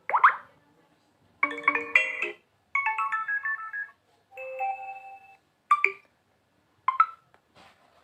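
Built-in notification tones of a Vivo V23 Pro phone, played through its speaker one after another as each is tapped for preview. First comes a quick rising sweep, then a cluster of chimes, a stepping run of notes, a pair of held tones, and two brief blips near the end.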